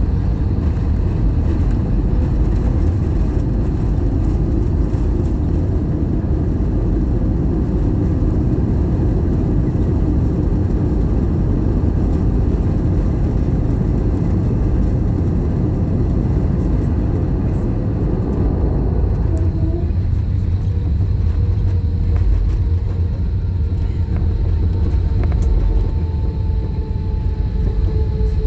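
Cabin noise of an Airbus A320ceo rolling on the ground after landing: a loud, steady low rumble that eases about two-thirds of the way through, leaving a lower hum with faint steady whining tones.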